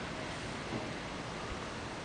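Steady wind noise: a breeze blowing over the microphone outdoors, an even hiss with no distinct events.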